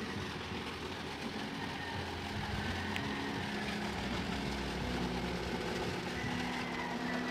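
Water gushing from a large pipe into a truck's water tank as it fills, over the steady hum of an idling engine.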